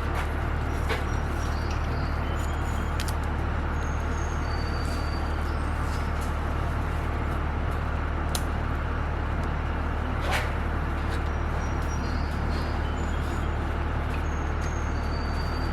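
A steady low mechanical hum with noise over it, with a few sharp clicks and short high chirps scattered through.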